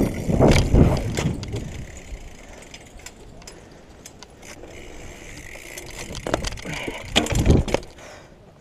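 BMX bike riding over stone paving, with tyre noise and the rattle of the bike. A heavy thump comes about half a second in as the front wheel comes down off a wooden bench, and another heavy thump about seven and a half seconds in.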